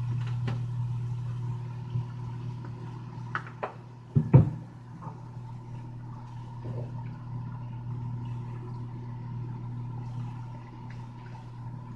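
Microwave oven running with a steady low hum while heating soup, with a few light clicks and one loud thump about four seconds in.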